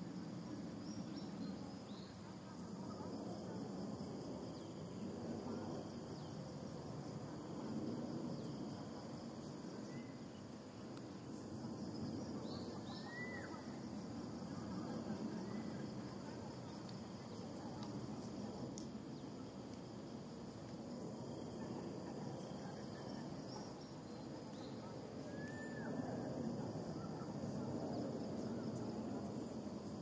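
Outdoor ambience: a steady low rumble under a constant high-pitched insect drone, with a couple of brief chirps from an animal or bird.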